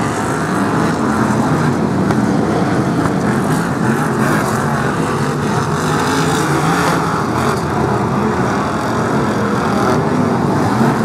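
A pack of BriSCA F1 stock cars racing, their V8 engines making loud, steady, overlapping engine noise.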